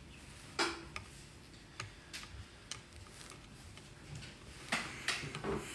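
A lull with scattered soft clicks and ticks close to the microphone. The sharpest comes about half a second in, and a few more come together near the end.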